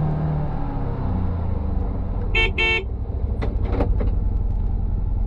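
UTV engine running steadily with a low rumble, with two quick horn toots about two and a half seconds in, followed by a few knocks.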